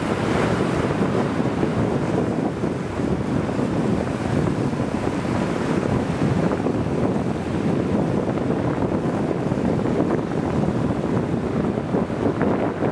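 Wind buffeting the microphone over choppy sea, a steady rushing noise with waves washing beneath it.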